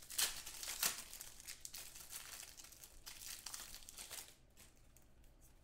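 Foil trading-card pack wrappers crinkling and crackling as a pack of 2015 Contenders football cards is torn open and handled. The crinkling is sharpest in the first second and thins to a few scattered crackles after about four seconds.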